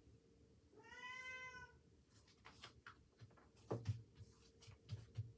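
A domestic cat meows once, a single steady call about a second long. It is followed by a scatter of small clicks and soft thumps, the loudest about four seconds in and again near the end.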